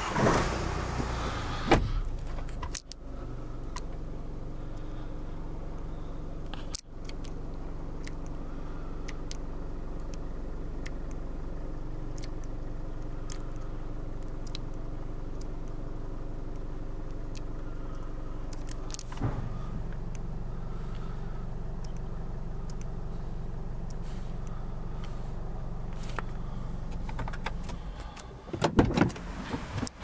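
Range Rover Evoque's engine idling steadily, heard from inside the cabin, after a louder rush in the first couple of seconds. Near the end come a few clunks and knocks of handling in the car.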